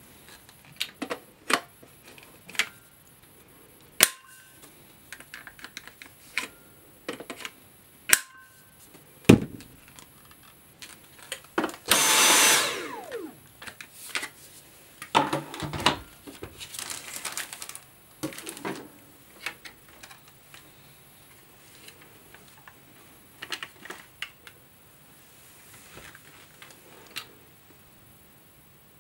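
Hard plastic vacuum-cleaner attachments being handled and fitted together: a scattered series of sharp clicks and knocks, one duller thump, and a couple of stretches of plastic packaging rustling, the longest about twelve seconds in. The vacuum's motor is not running.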